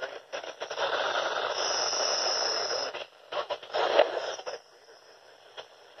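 Handheld weather radio receiver hissing with static: a steady hiss with a thin high whine over it for about a second, then shorter crackling bursts, dropping to a faint hiss after about four and a half seconds.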